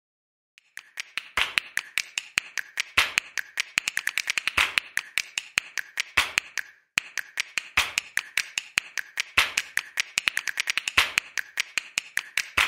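Rapid, uneven sharp clicks, several a second, in two runs of about six seconds each with a brief break between them.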